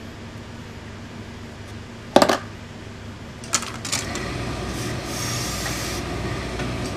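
A sharp knock about two seconds in, then a few clicks and a steady hiss of steam as a heavy gravity-feed steam iron is pressed onto a trouser leg.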